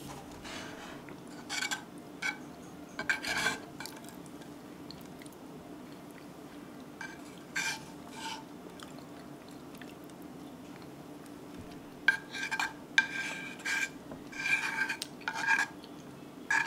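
A spoon scraping scorched rice (nurungji) off the bottom of a cast-iron skillet, in short squeaky scrapes. There are a few near the start, a couple more midway, and then a quick run of them in the last few seconds.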